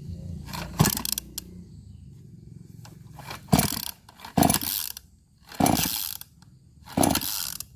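Pull-starter of a Pro Quip Auger 58 earth auger's 58 cc two-stroke engine being yanked five times, each pull a short burst of under a second, without the engine settling into a run. The operator takes it for flooded.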